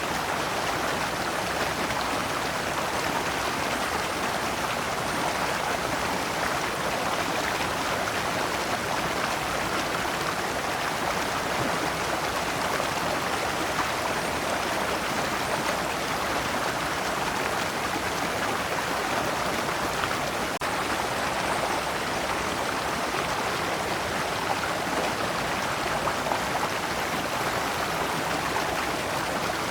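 Shallow stream flowing over large rocks in small cascades: a steady, even rush and splash of water.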